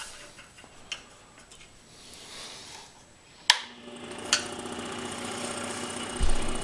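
Scroll saw switched on with a sharp click about 3.5 seconds in, then running steadily with its reciprocating blade; a low thump comes near the end. Before it starts, only faint clicks of small wooden blocks being positioned on the saw table.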